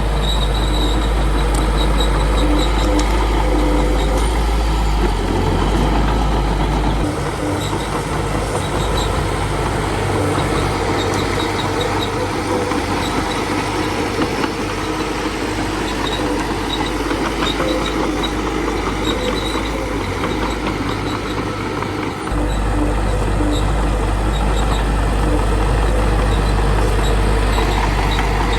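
Small bulldozer's diesel engine running continuously. Its steady low drone turns rougher and more uneven from about seven seconds in, then settles back to a steady drone for the last few seconds.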